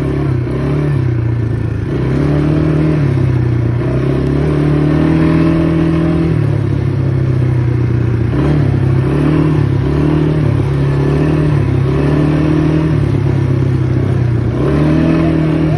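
ATV engine running close under the rider while driving, its pitch rising and falling again and again as the throttle is opened and eased, more often in the second half.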